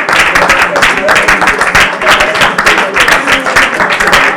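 A group of people clapping continuously, with voices praying aloud over the clapping.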